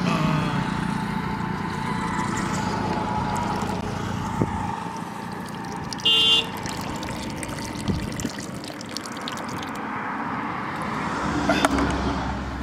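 Steady outdoor background noise with a low hum in the first few seconds, and one short, high-pitched horn-like toot about six seconds in.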